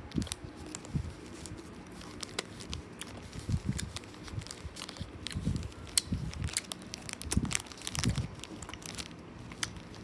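Someone chewing a gummy candy close to the microphone: many irregular small mouth clicks, with a few soft low thuds.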